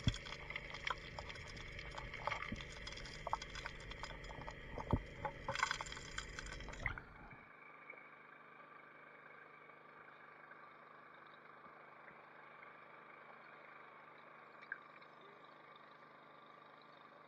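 Underwater sound of river stones and gravel clicking and knocking against each other over a steady rush of water. About seven seconds in, this cuts off and gives way to a fainter, steady sound of flowing water.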